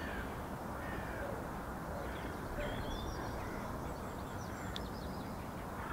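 Outdoor lakeside ambience: steady low background noise with a few faint, scattered bird calls.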